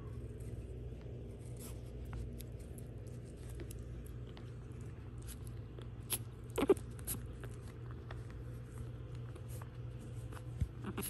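Shih Tzu puppies playing on a shag carpet: faint scratching, scuffling and clicking over a steady low room hum. A short, louder noise comes about six and a half seconds in.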